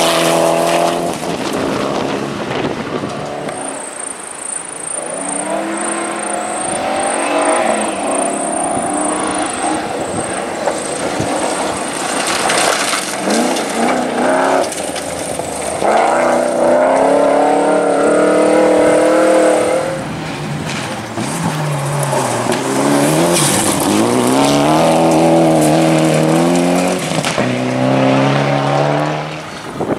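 Rally car engines revving hard through the gears as cars pass, the engine pitch repeatedly climbing and dropping with each shift, with a brief tyre squeal at times.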